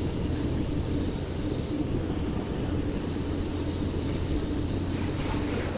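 A large machine running steadily with a low hum and a high whine; the whine drops out for about a second near the middle, and faint rapid ticking starts near the end.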